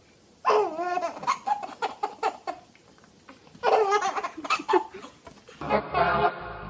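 A baby laughing hard in two long bouts of high, hiccupping laughs. About six seconds in, it cuts off and unaccompanied vocal chanting begins.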